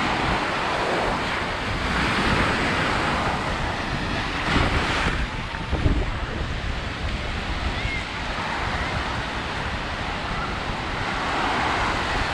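Small waves breaking and washing up a sandy shore, the surf swelling in surges about two seconds in, around five seconds in and near the end, with wind rumbling on the microphone.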